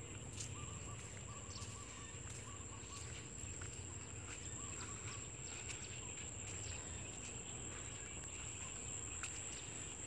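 Rural outdoor ambience: a steady high-pitched insect drone over low background rumble, with a few faint bird chirps in the first couple of seconds.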